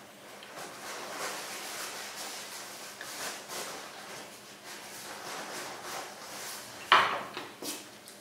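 A table knife scraping and tapping on a china plate as foie gras is cut, with light clinks throughout and one sharp, loud knock of utensils about seven seconds in.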